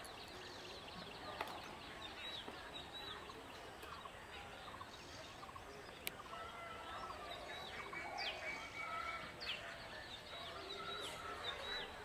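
Outdoor bird calls: many short, high chirps repeating throughout, with a few longer, louder calls about two-thirds of the way through, over a faint steady background.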